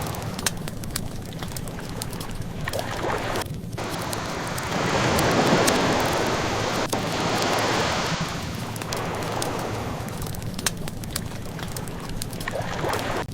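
Ocean waves washing in, one swelling loudest about halfway through, layered with a wood fire crackling in many small pops.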